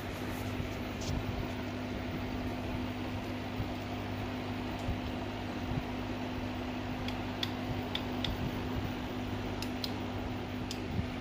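Aquarium air pump humming steadily as it drives a bubble-shower air stone, with the even fizz of streaming bubbles. A few faint ticks come between about seven and ten seconds in.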